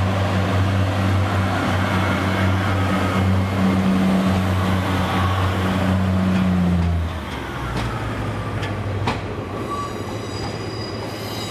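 Northern Class 144 Pacer diesel multiple unit pulling away: its underfloor diesel engine drones steadily and low, then drops away sharply about seven seconds in as the train draws off. Quieter wheel and rail noise follows, with a few sharp clicks and a faint high squeal near the end.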